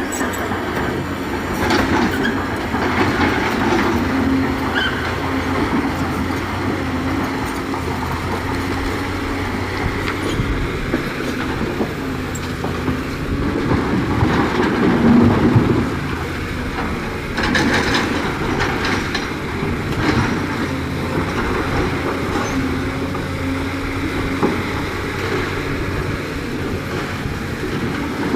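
Diesel engine of a JCB 3DX backhoe loader running steadily under work, with a few metal clanks from the digging and loading.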